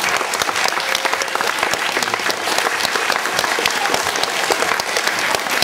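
Audience applauding: dense, steady clapping of many hands.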